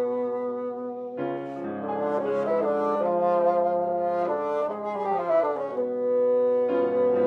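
Two bassoons playing with piano accompaniment. Long held notes change just over a second in, give way to a passage of moving notes, and settle on a new sustained note near the end.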